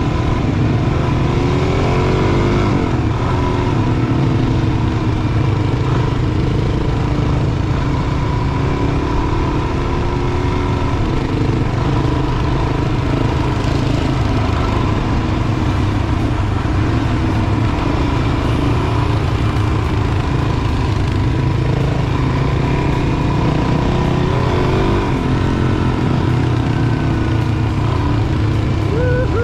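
Adventure motorcycle engine running steadily while riding on a dirt trail, with a dense low rumble throughout. The engine pitch shifts about two seconds in and again near the end, as the rider changes speed.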